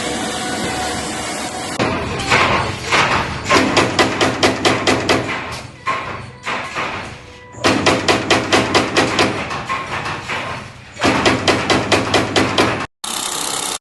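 A steady machine-like noise, then several runs of rapid, evenly repeated hard strikes, several a second, like hammering.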